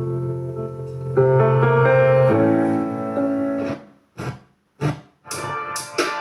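FM radio broadcast playing through a Pioneer SX-1080 stereo receiver: music with sustained piano or keyboard chords that stop about four seconds in, followed by a few short, clipped bursts of sound with brief silences between.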